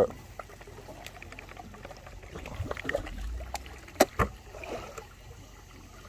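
Sea water lapping and trickling against a boat's hull, with two sharp knocks about four seconds in.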